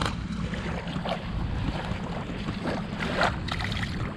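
Steady low outdoor rumble, either wind on the microphone or a distant motor, with a few brief soft noises, the clearest a little after three seconds in.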